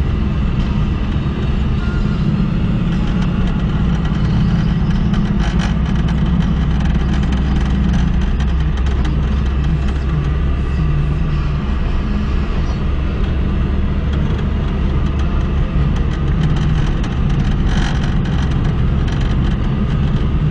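Car engine and road noise heard from inside the cabin while driving: a steady low drone with small shifts in pitch, and a few faint clicks.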